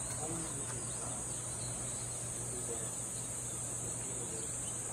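Summer chorus of cicadas (semishigure): a steady, unbroken high-pitched drone.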